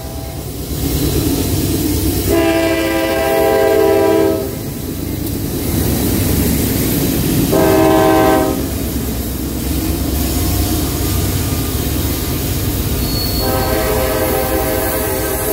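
Air horn on a passing CSX CM44AH diesel freight locomotive: the tail of one blast, then a long blast, a short blast and another long blast, the rhythm of the long-long-short-long grade-crossing signal. Under it runs a steady low rumble of the diesel locomotives and the freight cars rolling past.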